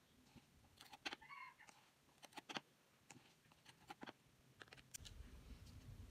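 Faint, scattered clicks and taps of a plastic measuring scoop scraping and knocking against a tin can of charcoal powder and tipping scoops onto paper.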